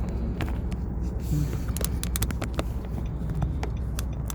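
Clicks, taps and light rattling of a phone and its windshield tripod mount being handled and readjusted, most of them in a quick cluster near the middle, over a steady low hum inside the car.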